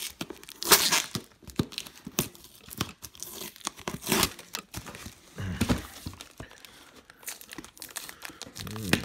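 Packing tape being peeled and ripped off a cardboard box in several irregular pulls, with the cardboard rustling; the loudest rip comes about a second in.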